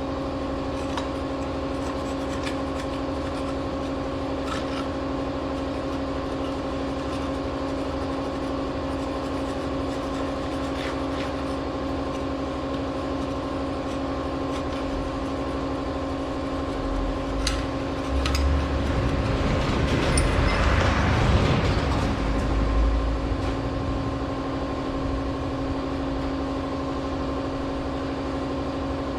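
Small two-stroke brush-cutter engine idling steadily at an even speed. Its manifold has just been cleaned of the clogging that made it bog down. About two-thirds of the way through, a louder rushing swell lasts a few seconds.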